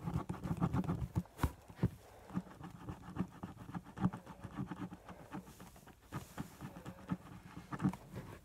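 Handling noise of a phone held right against hair and skin: irregular scratchy rubs and soft knocks at the microphone.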